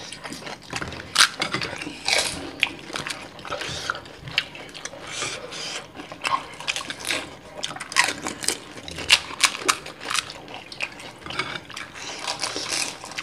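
Two people eating fuchka (pani puri) fast: the crisp fried puri shells crackle and crunch as they are bitten and chewed, with wet chewing of the sour-water filling, in quick irregular crackles.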